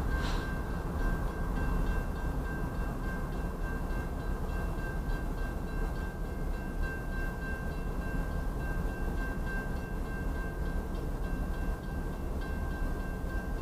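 Grade-crossing warning bell ringing steadily as one high tone over a low rumble, with a stopped double-stack freight train blocking the crossing. A brief hiss sounds at the very start.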